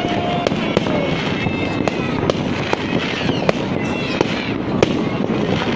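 Fireworks display: a dense, continuous crackle with sharp bangs about twice a second, and thin whistling tones over it.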